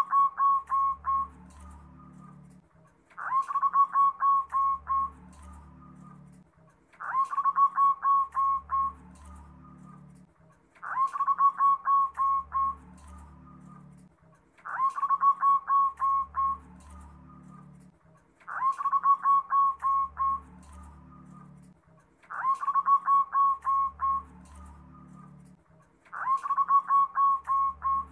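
Zebra dove (perkutut) cooing: its song phrase of a rising note followed by a quick run of short staccato coos, about two seconds long and repeated steadily about every four seconds.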